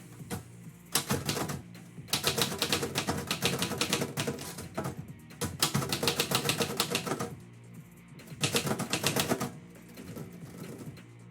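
Typewriter keys striking in fast runs of rapid clacks, four bursts with short pauses between them, over background music.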